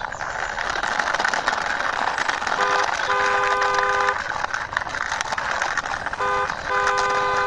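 A toy car's wheels rolling steadily as it is pushed along by hand, with a two-tone car horn honking twice: each time a short beep followed by a longer one.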